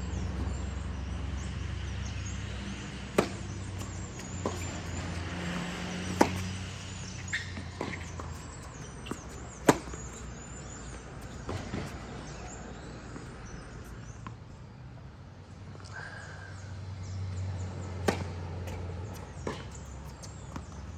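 Tennis ball struck by a racket and bouncing on a hard court: single sharp pops every second or few, the loudest about ten seconds in, over a low steady rumble.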